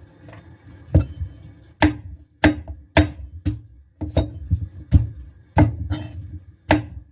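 Meat cleaver chopping through orange vegetable pieces onto a wooden chopping board: about ten sharp chops with a dull thud from the board, starting about a second in and coming a little under two a second.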